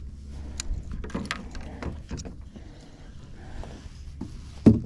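Scattered clicks and knocks of handling on a plastic fishing kayak over a steady low rumble, with one sharp knock near the end.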